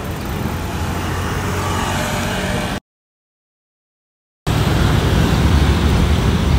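City street traffic: cars and motor scooters running and passing, with a steady low engine hum. The sound cuts out completely for about a second and a half in the middle, then comes back a little louder.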